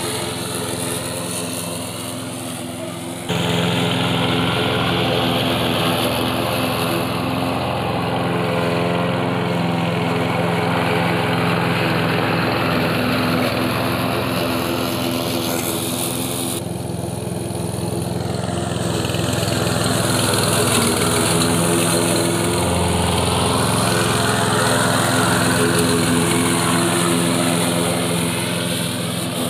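Walk-behind petrol lawn mower's 123 cc air-cooled single-cylinder four-stroke OHV engine running steadily under load while the blade cuts grass. The sound shifts abruptly in level and tone twice, about three seconds in and about seventeen seconds in.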